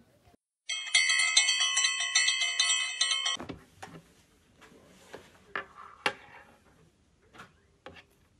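A bright, bell-like chime sound effect added in editing: a jingle of several ringing tones lasting about two and a half seconds that cuts off abruptly. After it, scattered light taps of a hand and coin against a wooden tabletop.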